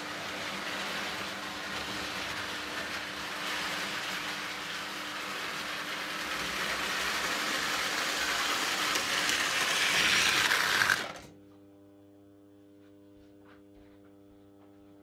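Lionel 237 O-gauge toy steam locomotive running on three-rail track: motor and gears whirring with wheels rattling over the rails, growing louder as it nears. It cuts off abruptly about 11 seconds in, leaving a faint steady hum.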